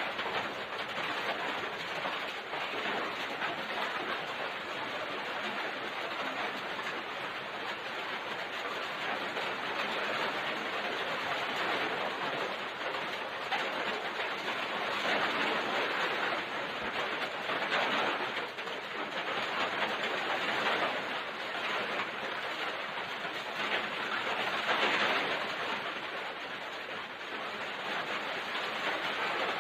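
Typhoon-strength wind and rain in a steady rushing noise, swelling louder in gusts several times.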